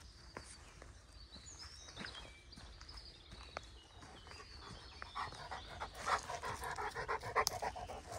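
Greater Swiss Mountain Dog panting in quick, even breaths close by, loudest in the last three seconds, with soft footsteps on the trail.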